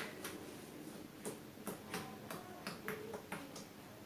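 Slime being squeezed and pressed in the hands, giving an irregular series of sharp clicks and pops, a few every second.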